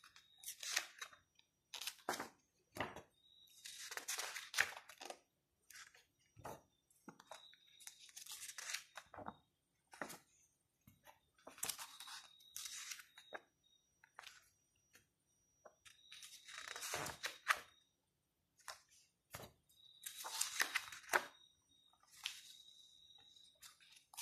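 Pages of a large hardcover photo book being turned one after another, each turn a brief, faint rustling swish of paper, about six of them spaced a few seconds apart, with small ticks of fingers on the paper in between.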